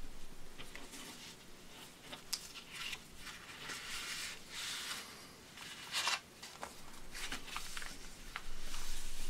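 Paper airplane being folded by hand: paper rustling, with short crisp crinkles as creases are run in, the sharpest about six seconds in. It grows louder near the end as the hands press the folded paper flat.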